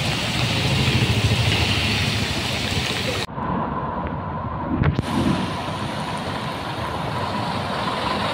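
Heavy rain pouring on a street with traffic passing. After a cut about three seconds in, vehicles drive through floodwater with water splashing, and a steady tone sounds in the background.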